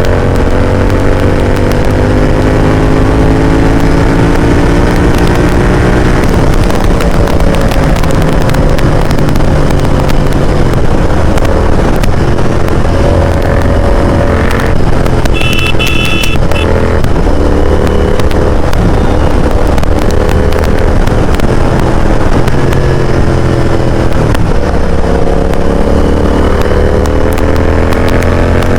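Royal Enfield GT650's 648 cc parallel-twin engine breathing through a loud Mototorque aftermarket exhaust while riding, its pitch climbing under acceleration in the first few seconds and again near the end. About halfway through the engine eases off briefly and a short high tone sounds.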